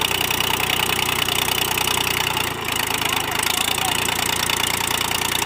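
Mahindra B275 DI tractor's three-cylinder diesel engine running steadily, with a brief dip in its sound about two and a half seconds in.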